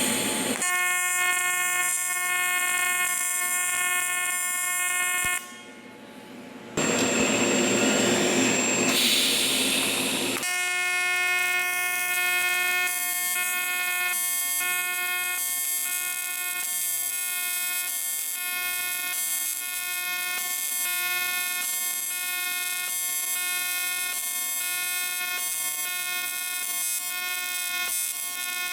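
AC TIG welding arc on thin aluminium: a steady, high buzz with hiss, broken off briefly about five seconds in, then going on steadily with less hiss.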